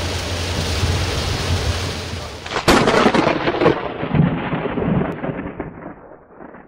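Heavy rain hissing, then about two and a half seconds in a sharp thunderclap that rolls on as rumbling thunder and fades away.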